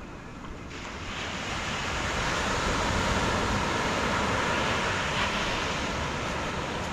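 Sea surf washing in on the shore: a rush of water that comes in about a second in, swells over the next couple of seconds and eases a little near the end.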